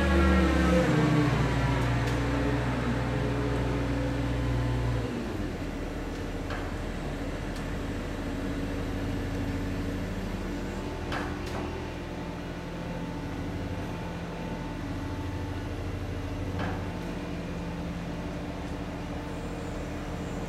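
Background music fades in its last notes and cuts off about five seconds in. Then a heavy diesel engine runs steadily, likely the crane lifting the steel tower section. A few faint metallic knocks come as the section is handled onto its boards.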